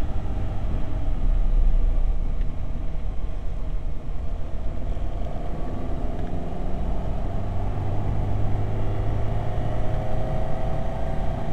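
Ferrari 308 GTB's V8 engine running at speed, heard from inside the cabin along with low road rumble. Its note climbs steadily through the second half as the car accelerates.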